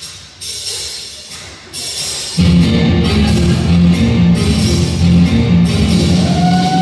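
Rock-style music with drums: a few sparse hits at first, then the full band comes in loudly about two and a half seconds in with a steady beat.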